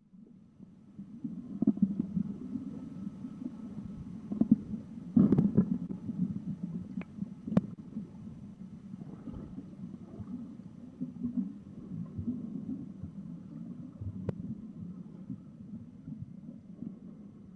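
Muffled low rumbling of water and handling noise picked up by an action camera sealed in its waterproof housing underwater, with a few sharp clicks.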